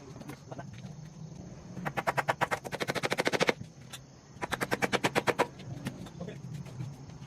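Electric demolition hammer chipping concrete or masonry in two bursts of rapid, evenly spaced strikes, the first about two seconds in and longer, the second shorter.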